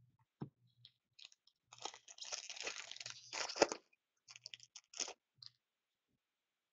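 Plastic trading-card packaging crinkling and crackling as a pack of hockey cards is opened and handled. It is loudest about three and a half seconds in, with a few light clicks before and after.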